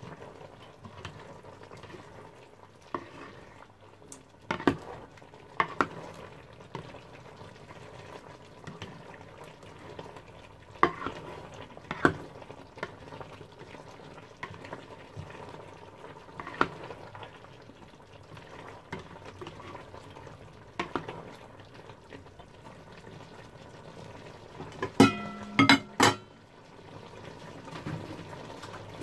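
A black spatula stir-frying vegetables in a stainless steel pan, knocking against the pan every second or two over a steady sizzle. Near the end comes a louder run of ringing clatters.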